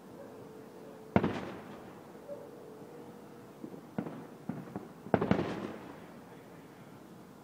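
Aerial fireworks bursting: a loud boom about a second in, a few smaller pops around four seconds, then another loud boom followed by a quick cluster of reports a little after five seconds.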